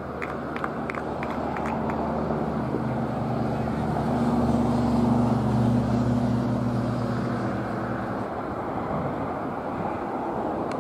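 An engine droning steadily outdoors, growing louder about four seconds in and fading after about eight seconds. A few light clicks sound in the first two seconds.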